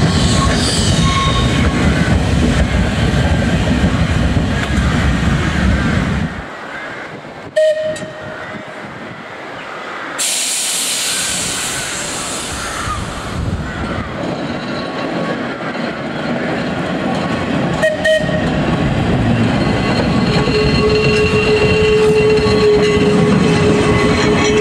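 Electric tramcar running on rails. The running noise drops off sharply about six seconds in, a hiss follows a few seconds later, and there are single sharp clicks twice. The running noise builds again with a steady tone in the last few seconds.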